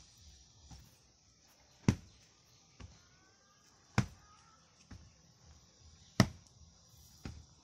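Hand rammer with a bamboo handle pounding the soil of a foundation trench to compact it: three heavy thuds about two seconds apart, with lighter knocks between them.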